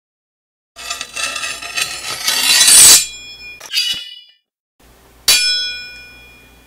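Produced sound effects: a metallic, shimmering swell builds to a peak and cuts off abruptly, then after a pause a single sharp metallic strike rings out and fades.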